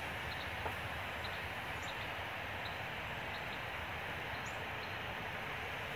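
Steady outdoor background hiss with a few faint, short high chirps scattered through it; no motor sound stands out.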